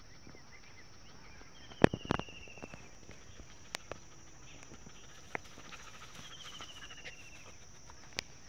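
Outdoor ambience over grass: a steady high hiss, and twice a short chirping trill that falls in pitch, about two seconds in and again near seven seconds. A few sharp knocks come through, the loudest just before the first trill.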